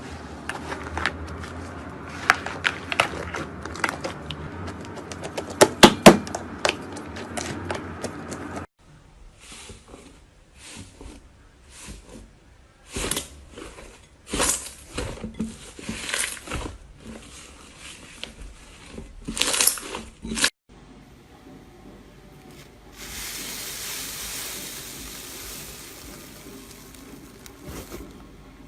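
Slime being squeezed and pressed by hand, with runs of short crackling clicks and pops. The sound changes abruptly about 9 and 21 seconds in, the clicks growing sparser, and a steady hissing noise takes over near the end.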